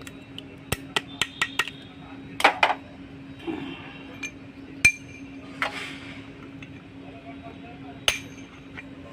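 Metal tools and parts clinking and tapping during work on a truck propeller shaft's universal joint. About a second in there is a quick run of five light taps, then a double knock, then a few scattered single clinks, all over a steady low hum.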